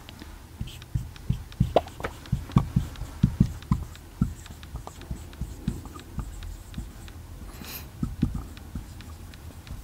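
Marker pen writing on a whiteboard: a run of quick, irregular taps and strokes as letters are written, thickest in the first few seconds.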